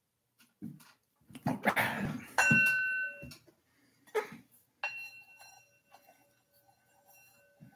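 A singing bowl struck with a wooden striker. The first ring, about two and a half seconds in, is stopped after about a second; a second strike near the five-second mark rings on and slowly fades. Short knocks and noisy handling sounds come before the first strike.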